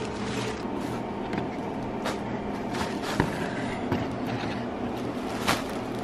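Scattered light crinkles and taps of plastic and cardboard packaging over a steady low background hum.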